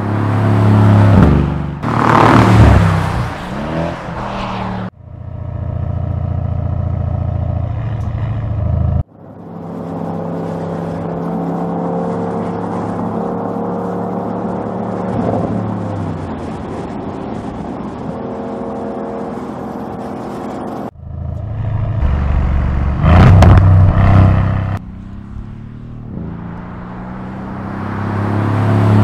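Twin-turbocharged 4.0-litre V8 engines and exhausts of a Mercedes-AMG E63 and a 2020 Audi RS6 Avant, heard in a string of cut-together driving clips. The engines rev and accelerate hard at the start and again near the end, and run more steadily through the middle, with abrupt cuts from one clip to the next.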